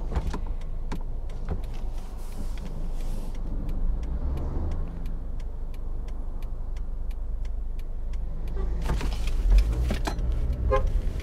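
Car engine and road noise heard from inside the moving car, with a steady light ticking about twice a second. The rumble grows louder near the end.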